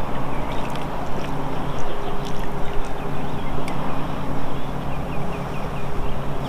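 Boat motor humming steadily under heavy wind noise on the microphone, with a few light scattered clicks and a faint high chirping repeating in the background.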